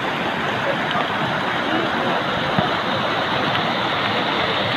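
Fast-flowing floodwater rushing steadily, a river swollen by heavy rain pouring across a road.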